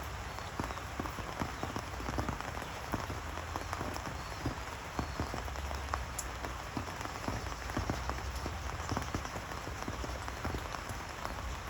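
Steady rain falling, with many irregular sharp ticks of drops striking a surface.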